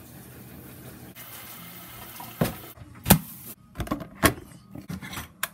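A running washing machine hums steadily, then a glass coffee-maker carafe with water in it is handled: a run of sharp knocks and clinks about half a second apart, with water sounds.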